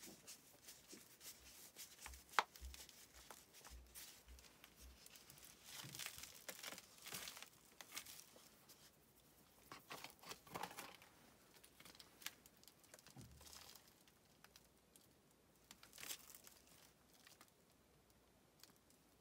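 Faint crinkling and rustling as a soft plastic nursery pot is squeezed, with a sharp click about two seconds in. Then dry, crumbly potting soil rustles as it is shaken off a fern's root ball by hand onto a paper sheet.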